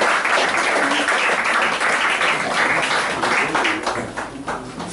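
Audience applauding, many hands clapping fast and thick, then thinning out and dying away near the end, with a few voices heard among the clapping.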